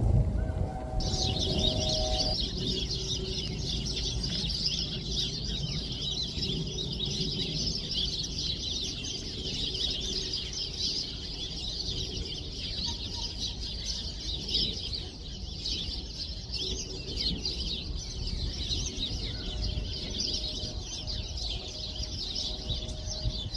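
Dense, continuous high-pitched chatter of a large flock of small birds, starting about a second in, over a low rumble.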